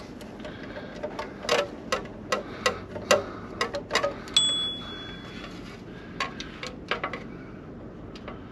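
Hand tools working metal under the hood: irregular sharp metallic clicks and clinks, thickest in the first half. A brief clear high ringing note sounds about four seconds in.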